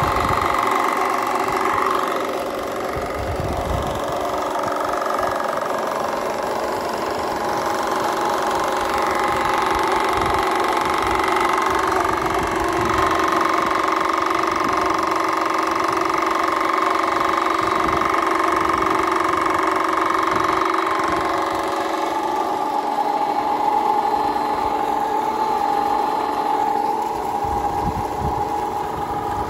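Solar-powered tubewell running: an electric motor turns a belt-driven pump with a steady hum and whine, and water gushes from the outlet pipe. The whine drops slightly in pitch about two-thirds of the way through.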